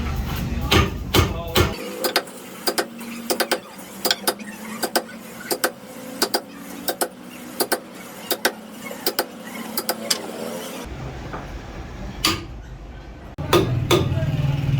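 Repeated hammer blows on steel, sharp ringing strikes about one or two a second, with a few more strikes over a low rumble near the end.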